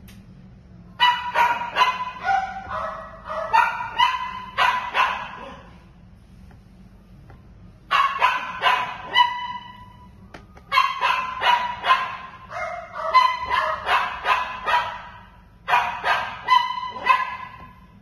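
A dog barking in runs of rapid barks and yips, four bouts with pauses of a few seconds between them.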